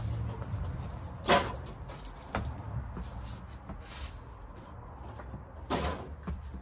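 Clunks and knocks of heavy equipment being moved by hand, over a low rumble. The loudest knock comes about a second in, and another comes near the end.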